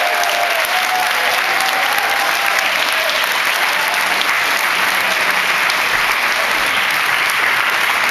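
Large seated audience applauding steadily.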